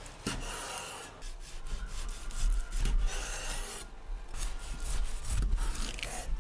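Chinese cleaver slicing skin-on pork belly with a fried rind on a wooden chopping board. Several rasping strokes sound as the blade saws through the crackled rind, with dull knocks as it meets the board.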